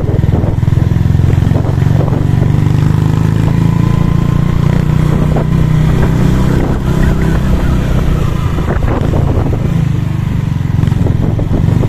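Motorcycle engine running steadily at low speed while riding along a street, heard from on the bike.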